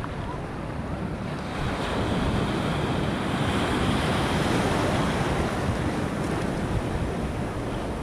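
Surf: a large breaking wave's whitewater rushing in around the waders. It swells about two seconds in and eases a little after about six seconds.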